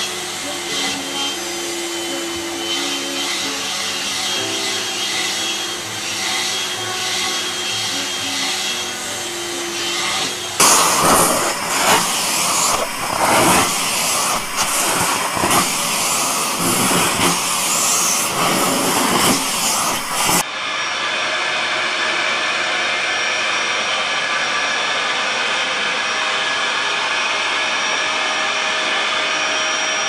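Vacuum cleaners running steadily across three clips, with hard cuts about a third and two thirds of the way through. The middle clip is louder, with irregular bumps and knocks over the motor noise.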